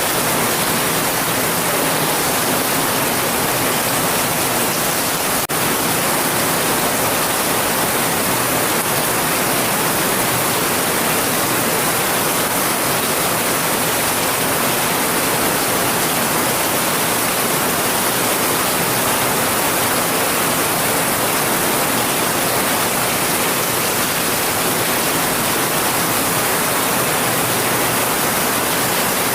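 Steady heavy rain: an even, unbroken hiss with no distinct drops or pauses.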